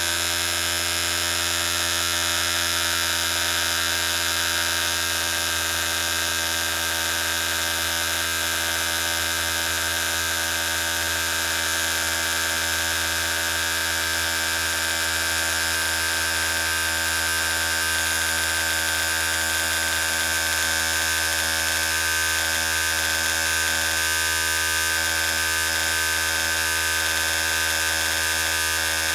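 Electric hair clippers' motor running with a steady buzz that holds even in pitch and level throughout.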